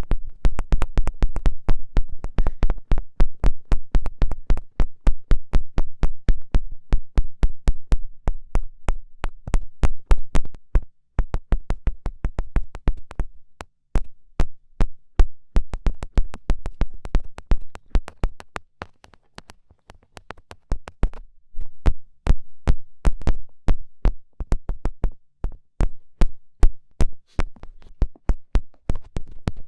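Quick fingertip pokes and taps, about four or five a second, each a sharp click with a deep thump, pausing briefly a few times.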